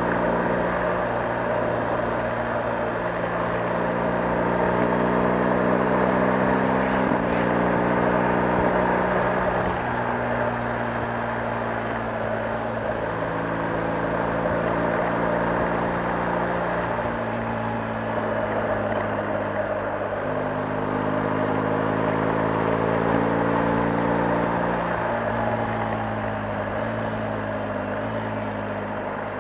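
BMW R 1250 GS boxer-twin engine running under way, its note holding, slowly climbing and then shifting to a new pitch several times, as with gear changes. A steady hiss of tyres and wind runs underneath.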